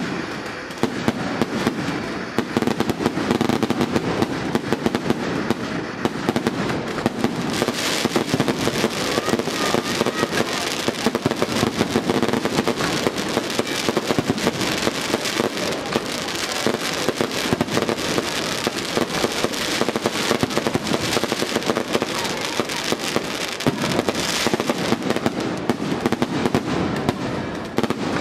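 Daytime fireworks display: a dense, unbroken barrage of bangs and crackling reports.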